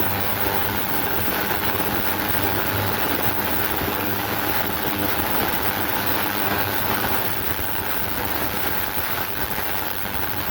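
Ultrasonic cleaner running with a steady hiss and hum, cleaning stripped lawnmower carburettor parts in plain water.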